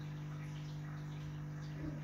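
A steady low hum, with faint scattered ticks over it and a short low sound just before the end.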